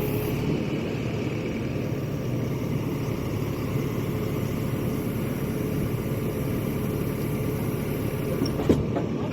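Heavy machine's engine running steadily, with a sharp knock near the end.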